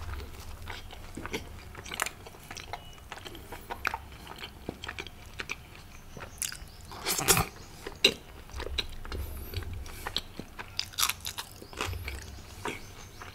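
Close-miked chewing of mouthfuls of butter naan dipped in rajma curry: a run of small wet mouth clicks, with a louder burst about seven seconds in.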